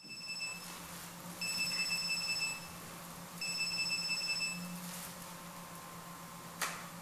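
Electronic telephone ringing: a short ring, then two longer rings of about a second each, under a second apart, over a steady low hum. A single sharp click near the end.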